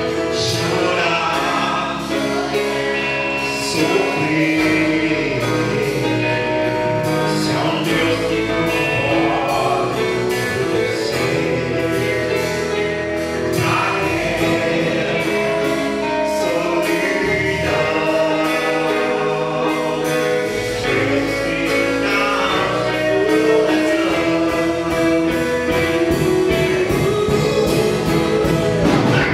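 Live church worship band playing a gospel praise song: a man singing lead into a microphone over electric guitars, drums and keyboard, with other voices joining in.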